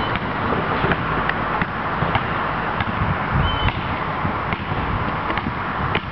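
Basketball dribbled on an asphalt street, with sharp bounces coming irregularly about every half second over a steady low rumble.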